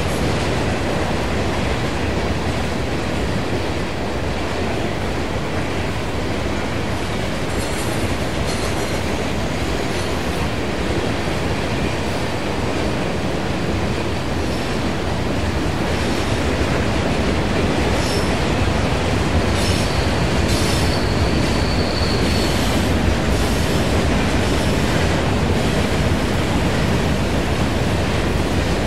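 Freight train cars rolling past, a steady rumble and clatter of steel wheels on rail. A high wheel squeal sounds for a couple of seconds about two-thirds of the way through.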